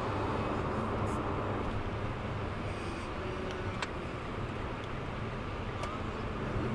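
Steady road and tyre noise with engine hum, heard from inside a car cruising at highway speed.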